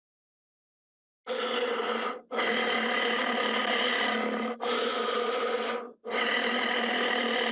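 Cyclops monster vocal sound effect: four long, rough, pitched cries in a row, starting about a second in after silence, each lasting one to two and a half seconds with only brief breaks between.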